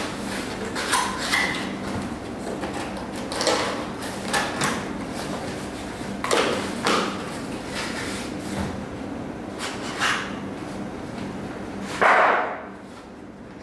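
Cardboard packaging being handled and opened by hand: a series of short scrapes and rustles as the box's flaps and handle are pulled, the loudest about twelve seconds in.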